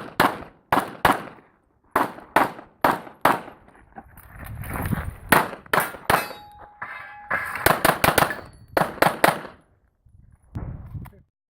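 CZ Accu-Shadow pistol fired rapidly, about two dozen shots in quick pairs and short strings with brief pauses between them. The shots stop about eleven seconds in.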